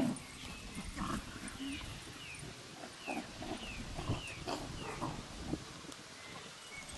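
Puppies wrestling in play, growling and grunting in short irregular bursts.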